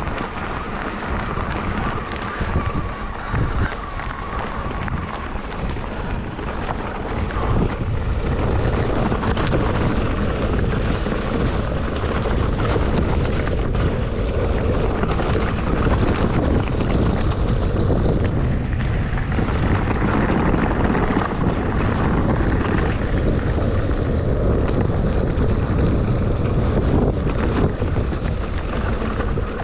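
Wind buffeting an action-camera microphone on a fast mountain-bike descent, over the rumble and clatter of the electric mountain bike's tyres and frame on a rough trail. A faint steady whine fades out in the first few seconds.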